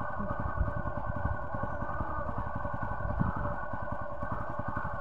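An engine running steadily, with a rapid, even pulse throughout.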